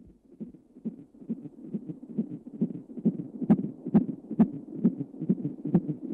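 A steady low thumping beat, about two thumps a second, like a heartbeat sound effect, with a sharp click on some of the beats. It fades in and grows louder.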